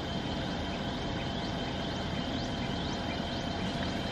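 Steady low rumble of a parked car's engine idling, heard from inside the closed cabin. A faint high chirp repeats a few times a second in the second half.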